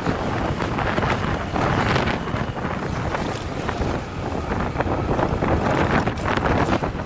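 Wind buffeting the microphone while travelling along a road: a steady rushing noise that swells and dips, with no engine note standing out.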